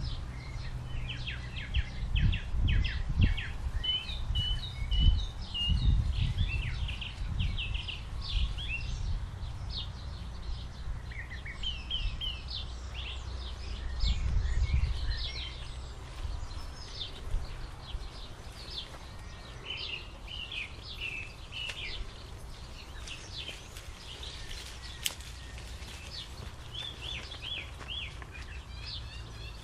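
Songbirds chirping and singing in short repeated phrases, over gusts of wind buffeting the microphone as low rumbles that are strongest in the first half and ease off after about fifteen seconds.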